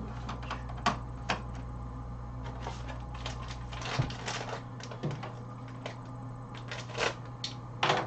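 A few sharp clicks and knocks as an ink cartridge is seated in the cartridge bay of a Sawgrass SG500 printer, then rustling and handling noise as the next ink cartridge is taken out of its box, over a low steady hum.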